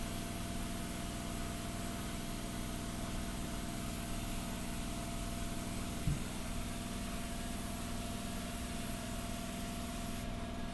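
Paint-spraying rig running: a steady motor hum with a hiss of air over it, and a single knock about six seconds in.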